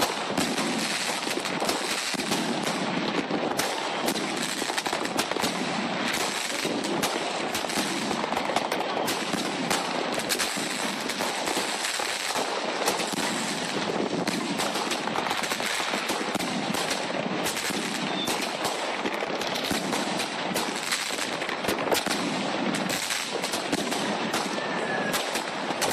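A 70-shot salute firework cake in a wooden box firing: a dense, unbroken string of sharp shots and bangs, several a second.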